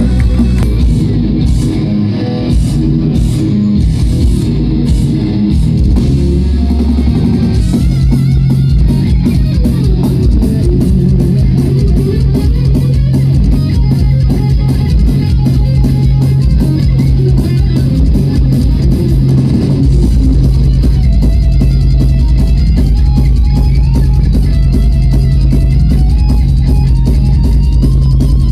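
Heavy metal band playing, with electric guitars, bass and drum kit. About seven seconds in it moves from separate chord hits into a fast, steady drum beat that keeps going.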